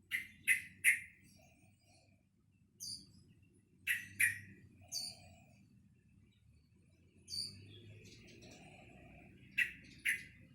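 Young sooty-headed bulbul practising its song: short, sharp chirps in quick groups of two or three, spaced a few seconds apart, over a soft, quiet warble between them.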